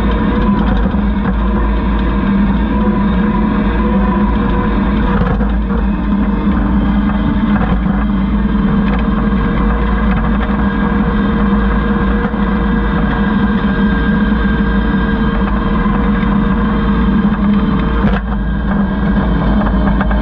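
Kubota SVL75 compact track loader's diesel engine running loud and steady, with a brief dip a little after eighteen seconds.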